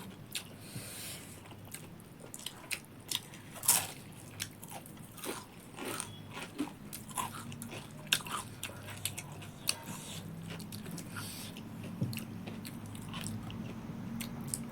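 Close-up mouth sounds of a person biting and chewing crunchy food, with irregular crunches and smacks. The loudest crunch comes about four seconds in.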